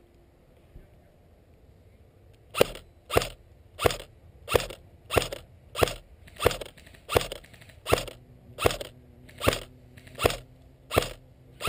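Airsoft rifle firing single shots at a steady pace, about one and a half shots a second, starting a couple of seconds in and keeping on.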